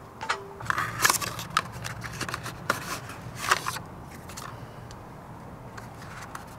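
Paper and cardboard packaging rustling and crinkling as it is handled, with a quick run of clicks and scrapes in the first few seconds, then only a faint low hum.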